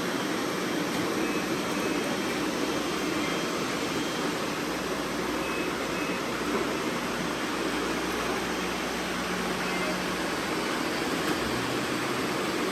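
Many robot vacuums running at once, a steady whirring hum of their motors and brushes.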